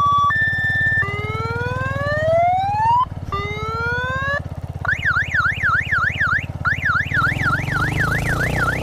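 Electronic police-style siren on a motorcycle cycling through its tones: a two-tone hi-lo for the first second, then two rising wail sweeps, then from about five seconds in a fast yelp warbling up and down about three or four times a second. Underneath, the motorcycle's engine runs steadily.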